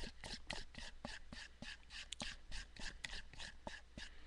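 A utensil scraping and stirring inside a plastic tub in quick, even strokes, about six a second.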